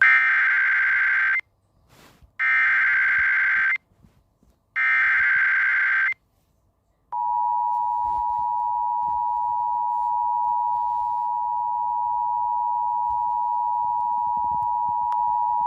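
Emergency Alert System header: three identical bursts of shrill digital data tones, about a second and a half each with a short gap between, then the steady two-tone attention signal, which starts about seven seconds in and holds. Together they announce an emergency alert, here a flash flood warning.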